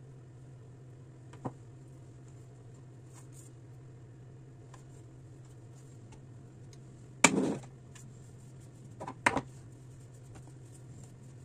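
A kitchen scale being moved on a stone countertop while dough is handled: a small click, then a short loud clatter as the scale is shifted, and two quick knocks about two seconds later as it is set down, over a low steady hum.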